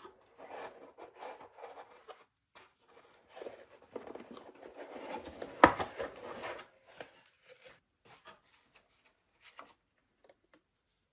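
Gloved hands handling cardboard keyboard packaging: the box and its tray sliding and rubbing, with one sharp knock about halfway through, then a few soft taps.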